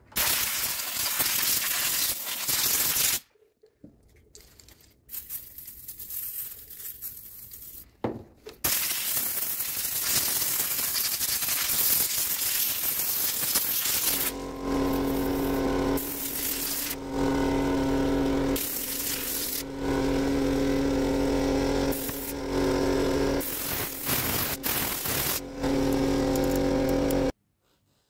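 Compressed air from a hand-held blow gun blasting degreaser residue out of a typewriter's mechanism. There is a long hiss at the start and another from about 8 seconds in, with quieter hissing between them. From about halfway through come a string of shorter on-off blasts with a steady hum beneath the hiss.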